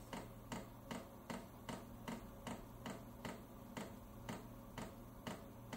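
Diesel heater's fuel dosing pump ticking faintly and evenly, about two and a half clicks a second, over a low steady hum, as it starts pumping diesel to the burner during startup.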